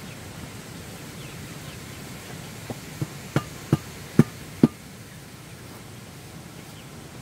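Six dull thuds in quick succession, about half a second apart, beginning a little under three seconds in, over a steady low hiss of outdoor background.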